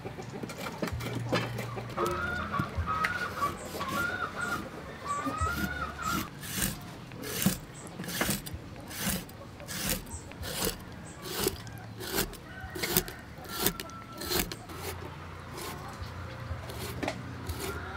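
A cleaver knocking on a wooden chopping board in a steady series of sharp chops, about two a second, as it scores cuts into a whole fish. A chicken clucks during the first few seconds.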